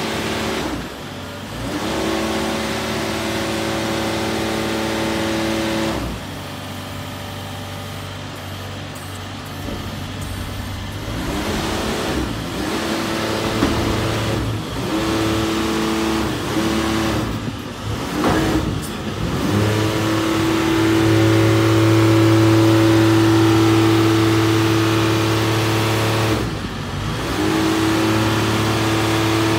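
Engine driving the hydraulics of a Hammar side-loader crane as it lifts a shipping container onto the trailer. It runs at raised speed with a steady hum, sagging and picking up again several times as the arms are worked, and holds steadiest and loudest near the end.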